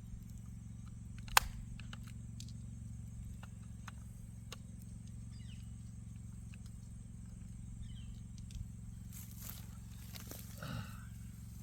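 Small plastic clicks and handling noises from a miniature trail camera being opened for a battery change, with one sharp click about a second and a half in. A brief low voice-like sound comes near the end, over a steady low hum.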